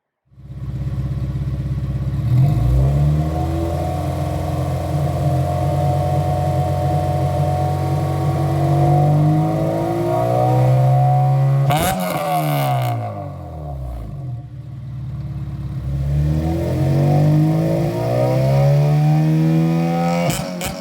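Honda Civic Type R EP3's 2.0-litre four-cylinder engine running through a Spoon N1 exhaust with Spoon resonator, revved in place: it comes in suddenly, holds raised revs steadily, then is blipped sharply about twelve seconds in and again near the end, the revs falling back between.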